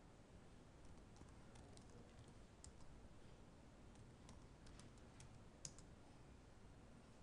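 Faint typing on a computer keyboard: scattered single keystrokes and short runs of clicks, irregularly spaced.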